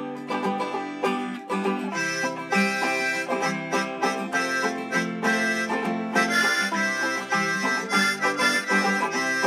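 Instrumental folk-country music: quick, rhythmic plucked strings, with a held melody line that joins in about two seconds in.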